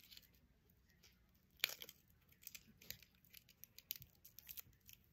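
Faint crinkling and small clicks of a thin clear plastic sheet of adhesive nail tabs being handled and picked at with the fingers, the sharpest click about a second and a half in.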